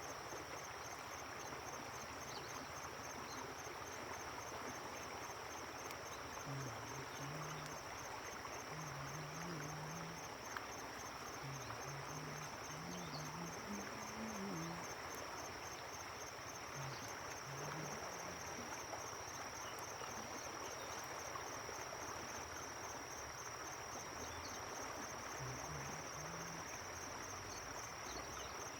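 Crickets trilling steadily at one high pitch in a fast even pulse, over a constant soft hiss.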